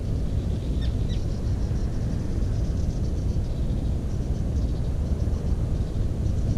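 A steady low rumble, with faint rapid high ticking over it and two short descending bird chirps about a second in.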